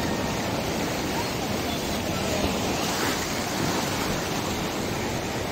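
Ocean surf breaking and washing over a rocky shoreline: a steady wash of waves.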